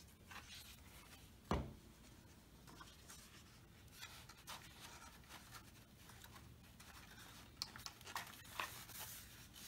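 Faint rubbing and rustling of paper as glue is spread and paper strips are pressed onto a paper model, with small clicks. A single dull thump comes about a second and a half in.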